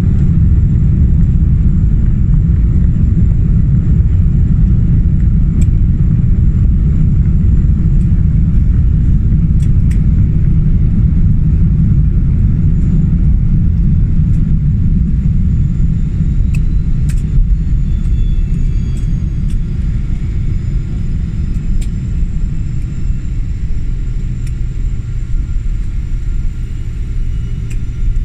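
Inside the cabin of a Boeing 777 rolling along the runway after landing: a loud, steady low rumble that slowly eases off in the second half, with a steady low hum coming in near the end.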